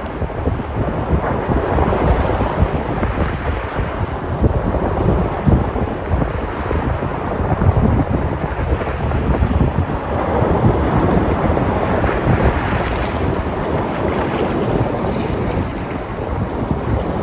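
Sea surf on the Cyprus coast: waves washing and breaking continuously, swelling louder about two seconds in and again about ten seconds in. Wind rumbles on the microphone underneath.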